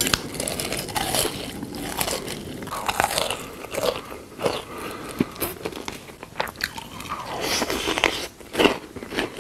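Close-miked eating: irregular crunchy bites and chewing, with sharp crackly crunches.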